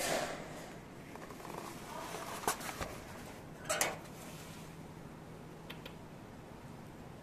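A door being opened, with a burst of handling noise at the start and a few sharp clicks and knocks, over a steady low hum.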